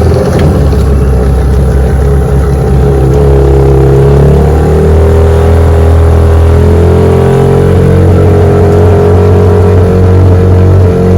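1996 Johnson 15 hp two-stroke outboard motor running under way. Its pitch rises about three seconds in as it picks up speed, then holds steady.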